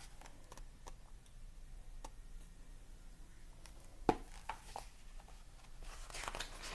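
An open hardcover picture book being handled and held up: faint paper clicks and rustles, with one sharp knock about four seconds in and a few more rustles near the end.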